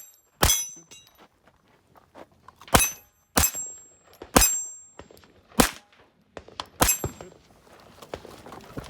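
.22 rimfire pistol firing at steel targets: about six sharp shots at uneven intervals, several followed by the high ring of a struck steel plate.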